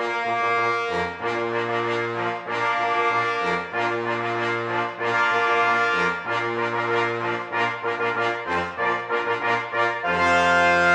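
Brass fanfare music: a run of held chords with short breaks between them, then a longer, louder chord near the end.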